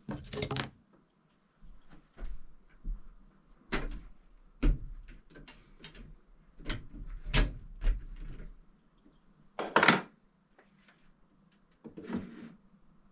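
Irregular knocks, clicks and clunks of small objects or tools being handled and set down, about a dozen in all, with a longer scraping rustle about ten seconds in.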